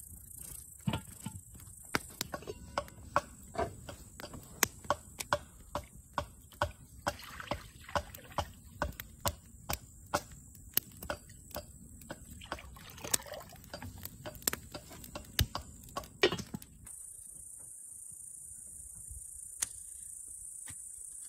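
Wood fire crackling and popping under a cast-iron kazan, sharp irregular pops about twice a second, with water being poured into the pot. The pops stop suddenly about 17 s in, leaving a steady high chirr of crickets.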